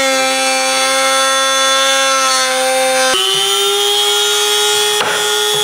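Dremel-type rotary tool with a cutoff wheel cutting a black skid-plate sheet: a steady high motor whine whose pitch steps up about three seconds in.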